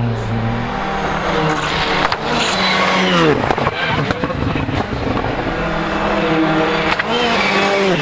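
Rally cars' engines at full throttle. The revs drop steeply about three seconds in, as on braking and downshifting, then climb again near the end, with a few sharp cracks in between.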